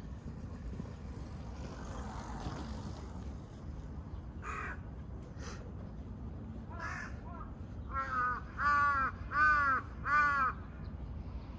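A crow cawing: a few faint caws, then four loud caws in a row about two-thirds of a second apart near the end.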